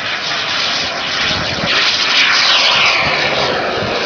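Turbine engine of a large-scale RC F-16 model jet at high power, a loud jet hiss as the model climbs out after takeoff. It swells as the jet passes, and its pitch falls about two seconds in.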